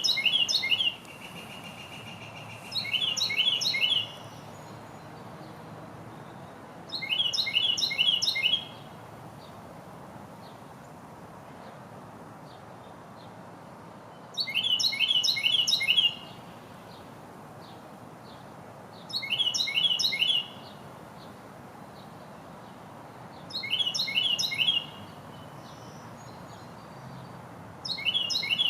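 Carolina wren singing: loud songs about a second and a half long, each a rapid series of four or five repeated rolling phrases, coming every three to seven seconds, about seven times. Faint steady outdoor background noise lies underneath.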